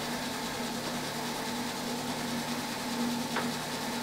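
Old HSS drill sharpening machine running steadily, its motor and grinding wheel spinning with a steady hum and hiss, before the grinding feed is engaged. A faint click comes near the end.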